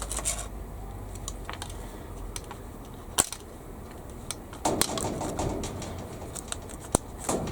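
Irregular light clicks and taps of a plastic blister tray being handled, with a quick cluster of small knocks about five seconds in.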